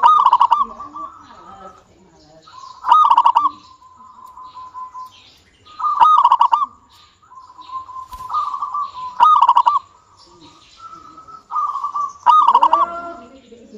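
A local Indonesian zebra dove (perkutut) singing. It gives a repeated trilled cooing phrase about every three seconds, five times, with softer trills in between.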